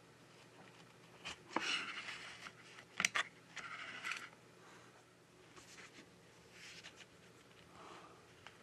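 Small hand tools working on a phone: scraping and a few sharp clicks bunched between about one and a half and four seconds in, then fainter rustles.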